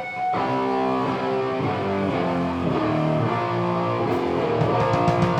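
Live band music: an electric guitar playing chords on its own, starting suddenly, with drum hits coming in near the end.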